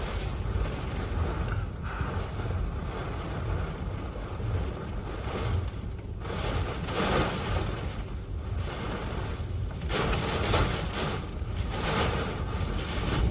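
Hurricane-force eyewall wind gusting, a loud rushing hiss that swells and eases every second or two. Wind buffeting the microphone adds a heavy low rumble.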